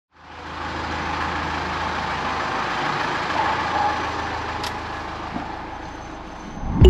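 Mitsubishi Pajero Full's engine idling steadily, heard through the open driver's door; it fades in at the start, with one faint click about two-thirds through.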